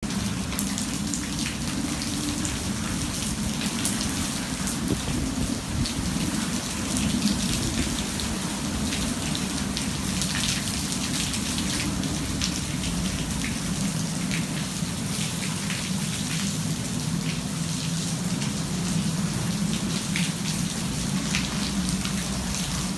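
Heavy thunderstorm rain falling steadily, with many individual drops clicking sharply over a steady low rumble.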